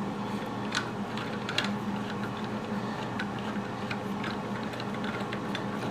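Faucet aerator being unscrewed by hand, giving small scattered clicks and ticks, over a steady low hum.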